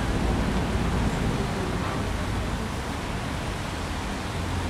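A small river rushing over rocks and low cascades: a steady wash of water noise, with a steady low rumble underneath.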